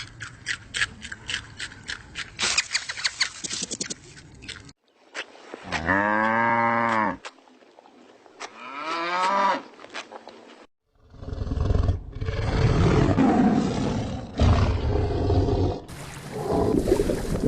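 A run of different animal sounds. Rapid clicking for the first few seconds, then one loud, drawn-out animal call about six seconds in, shorter rising calls a little later, and rough, noisy animal sounds through the last seconds.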